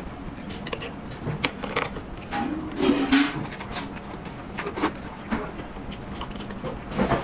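A person eating a rice noodle roll: chewing and mouth sounds with scattered light clicks and knocks of tableware, busiest about three seconds in.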